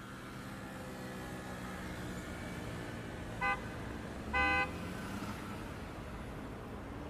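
Urban road traffic ambience: a steady hum of passing cars, broken by a car horn tooting twice, a short toot about three and a half seconds in and a slightly longer one just under a second later.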